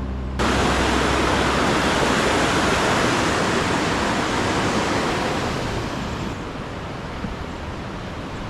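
Steady rush of flowing water, cutting in abruptly about half a second in and easing a little near six seconds.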